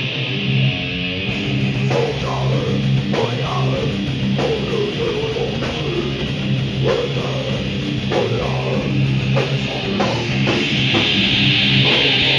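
Heavy metal band playing live: distorted electric guitars over a pounding drum kit.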